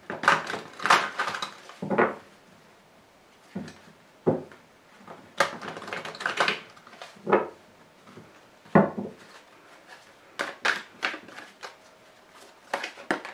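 A Grand Jeu de Mademoiselle Lenormand card deck being shuffled by hand: irregular short bursts of cards slipping and rustling, a second or two apart, with quiet gaps between.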